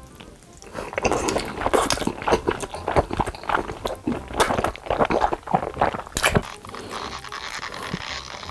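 Close-miked eating sounds of a person biting and chewing sauce-glazed chicken wrapped in stretchy melted cheese: a quick, irregular run of bites and chews starting about a second in.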